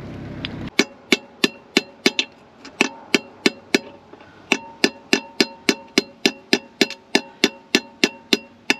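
Hammer tapping steel, driving out the split pin that holds the excavator thumb cylinder's pin. The taps come steadily, about three a second, each with a metallic ring, with a short pause about four seconds in.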